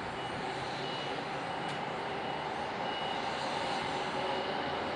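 Rail-yard diesel locomotive engine running steadily, with a few short high beeps coming and going.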